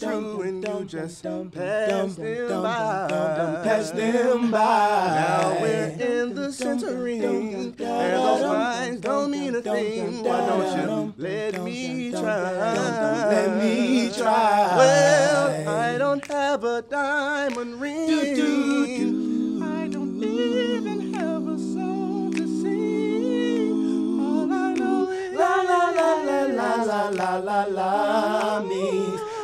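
A male vocal quartet singing a cappella in close harmony, with the voices holding one long steady chord about two-thirds of the way through.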